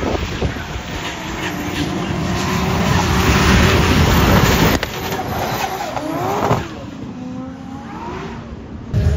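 Drift cars' engines running hard with tyre noise, swelling to a peak about four seconds in. After a sudden break, engines rev up and down more quietly.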